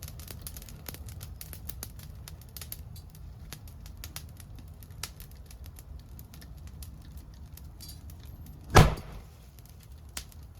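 Bonfire crackling with many small pops, then, a little after two-thirds of the way through, a single loud bang: a piece of bamboo bursting in the fire.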